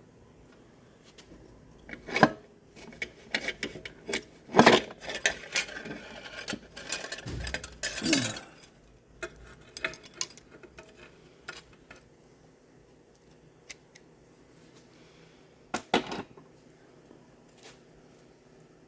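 Metal parts of a 4L60E automatic transmission, its clutch plates among them, clinking and clanking as they are handled. There is a run of clatter in the first half of the clip and a sharp double clank near the end.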